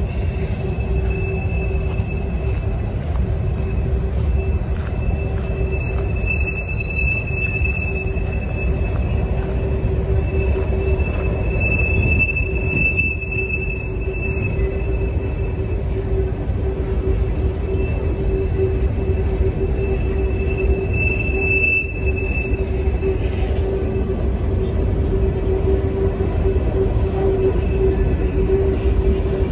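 Loaded CSX stone-train hopper cars rolling past with a steady low rumble. A high-pitched metallic squeal from the wheels comes and goes during the first two-thirds, loudest for a few seconds at a time, over a lower steady squealing tone.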